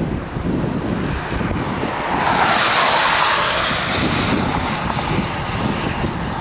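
Gusty wind buffeting the microphone, with a loud rushing hiss that swells up about two seconds in and fades away about two seconds later.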